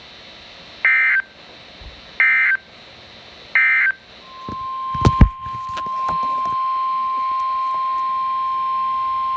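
Emergency Alert System SAME header: three short bursts of warbling data tones, about a second and a half apart. About four seconds in, the NOAA Weather Radio 1050 Hz warning alarm starts, a steady single-pitched tone that holds, with a loud thump about a second after it begins. This signals that a new warning follows.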